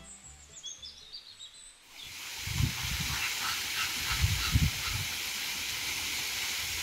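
Background music fading out with a few high bird chirps, then, about two seconds in, a steady rushing hiss of water running down an artificial rock waterfall into a pool. A few low buffets of wind on the microphone come through it.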